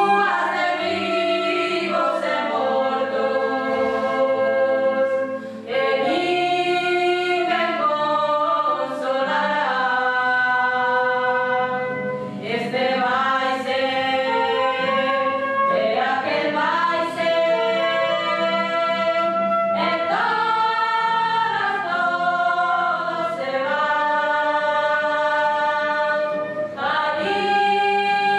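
A choir singing in several voices, holding long chords that shift every couple of seconds.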